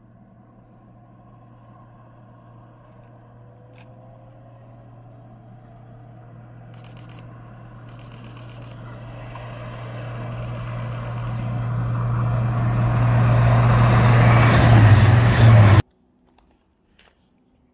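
SNCF X 76500 AGC diesel multiple unit approaching along the line, its engine and wheel-on-rail noise growing steadily louder over about fifteen seconds. The sound stops suddenly near the end, just as it is at its loudest.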